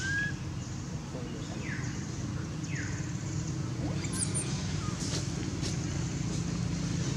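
Steady low rumble of a motor vehicle engine running. A short arched high-pitched call sounds right at the start, and a few faint clicks come later.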